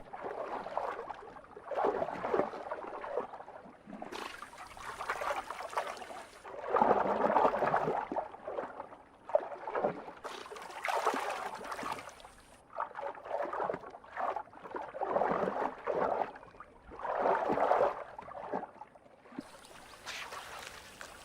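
Water splashing and gurgling in irregular surges a second or two apart as spot-necked otters swim and hunt underwater.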